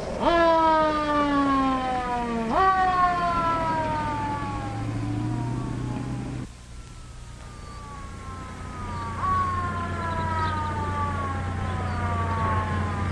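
Police patrol car siren wailing, each wail jumping up sharply and then sliding slowly down over about two seconds, on an emergency run to an accident. The sound breaks off about six and a half seconds in and the wailing picks up again a second later, over a steady low hum.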